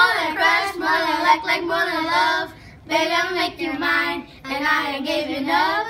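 Young boys singing unaccompanied, three short sung phrases separated by brief pauses.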